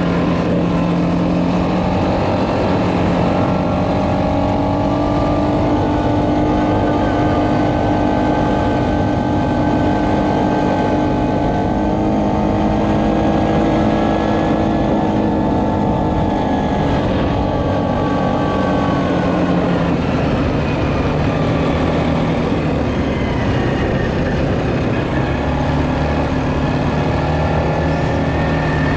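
ATV engine running under way on a dirt trail. Its note rises and falls with the throttle: it climbs through the first half, eases off about two-thirds of the way through, and picks up again near the end.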